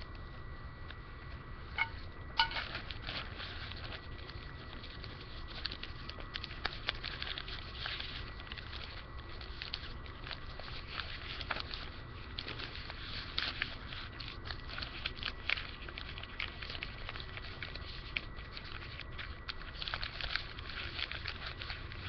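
Newspaper being rolled up by hand: a steady, irregular crinkling and rustling of paper, with a low rumble underneath.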